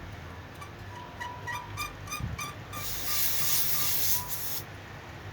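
R-12 refrigerant gas hissing through the charging line into a refrigerator's sealed system for about two seconds, just after a quick run of short high squeaks.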